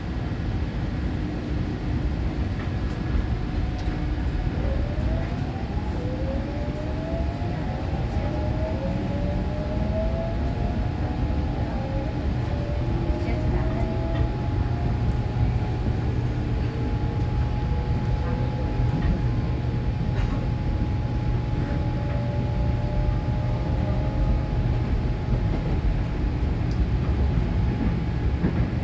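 Toshiba GTO VVVF inverter drive of a Korail Line 4 electric train whining as the train accelerates: a run of tones gliding up in pitch one after another, then a steady tone, over the continuous rumble of the train running on the rails.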